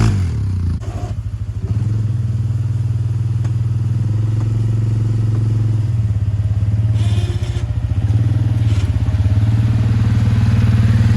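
Small engine running steadily at low speed, with its level dipping briefly about a second in and again past the middle.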